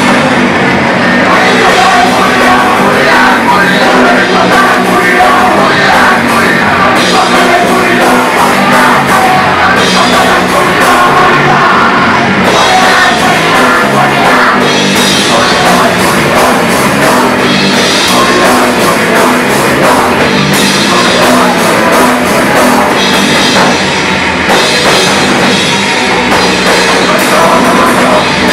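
A punk band playing live and loud: electric guitars and a drum kit with cymbals, unbroken throughout.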